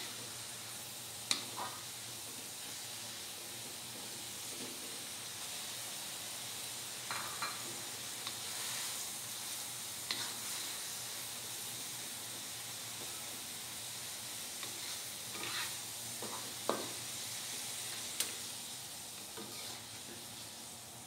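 Water spinach (kangkung) sizzling as it is stir-fried in a wok, with a wooden spatula scraping and knocking against the pan a few times.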